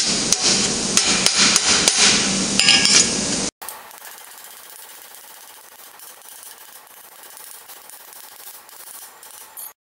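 Rapid hammer blows on a steel gauntlet plate held over a square bar stake, about four strokes a second, each ringing. They stop abruptly about three and a half seconds in, leaving only a faint hiss with light ticks.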